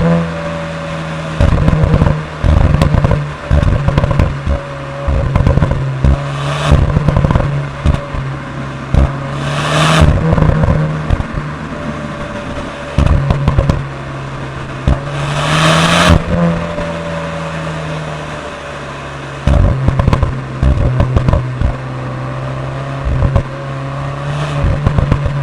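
Cupra Leon ST VZ's 2.0 TSI turbocharged four-cylinder engine under hard driving, its exhaust note rising and falling, with repeated clusters of loud pops and crackles on and off the throttle. A few loud rushing bursts stand out above the engine.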